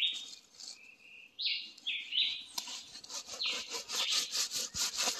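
Machete blade sawing back and forth through a ripe jackfruit's rind and flesh, rasping strokes that come fast, about five a second, in the second half. Birds call repeatedly in short clipped notes throughout.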